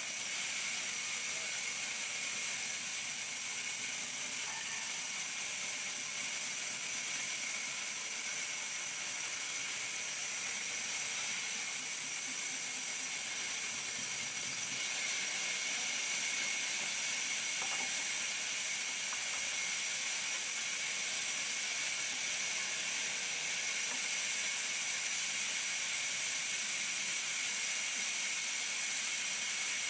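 Large vertical band saw running and ripping through a timber slab: a steady hiss with a high-pitched whine from the blade.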